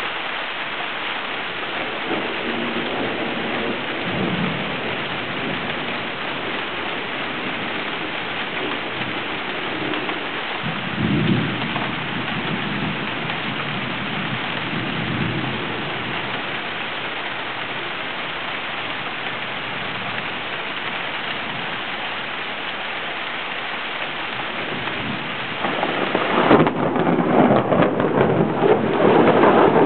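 Thunderstorm: heavy rain hissing steadily, with low thunder rumbling several times in the first half. Near the end the rain grows louder and rougher as wind gusts buffet the microphone.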